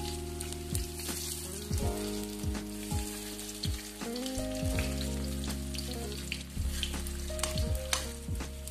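Corn fritters frying in hot oil in an aluminium wok, sizzling throughout, with short scrapes and taps of a metal slotted spatula against the wok. Background music with held low notes plays underneath.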